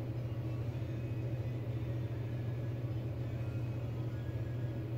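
A steady low hum with no distinct knocks or impacts.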